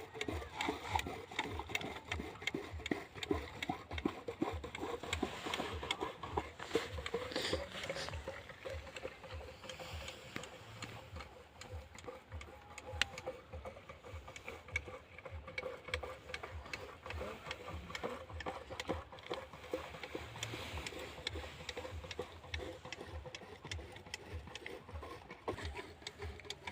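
A small engine running steadily, with a rapid even thudding rhythm.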